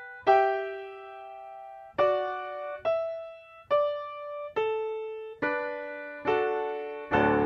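Piano music played on a Yamaha Disklavier player piano: a slow line of single notes and small chords, struck about once a second, each left to ring and fade. Near the end a fuller chord with low bass notes comes in.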